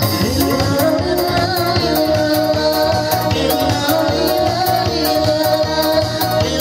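Upbeat dance music with a steady beat, a shaker-like rattle and a sustained melody.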